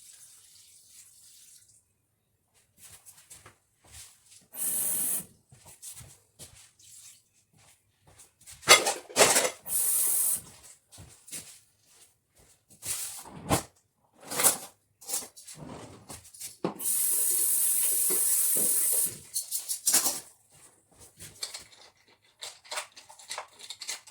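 Kitchen tap water running in three spells, each turned on and off sharply, the last lasting about two and a half seconds. Scattered knocks are heard between them.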